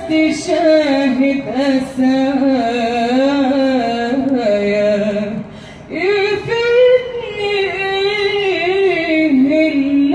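A woman singing an Arabic song live, holding long notes with a wavering vibrato and ornamented turns, with a brief dip near the middle before the next phrase.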